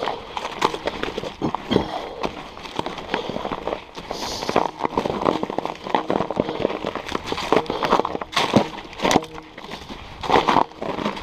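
Mountain bike clattering over a rocky trail: a rapid, irregular run of knocks and rattles as the tyres hit the rocks and the bike jolts over them.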